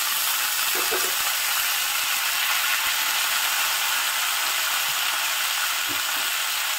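Sliced beans and potatoes frying in hot mustard oil in a kadai: a steady sizzling hiss.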